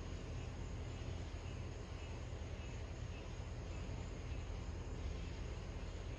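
Faint night insects, crickets, chirping in a regular pattern over a steady low rumble.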